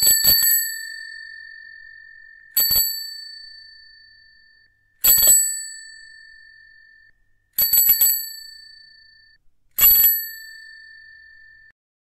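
Bicycle bell rung five times, about every two and a half seconds. Each ring is a quick run of two or three strikes, and its bright tone then dies away over a second or two.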